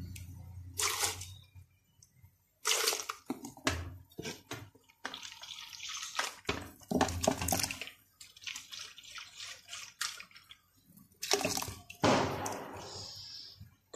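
Milk and ground rice being poured into a steel pot and stirred with a metal spoon, sloshing and splashing in irregular bursts.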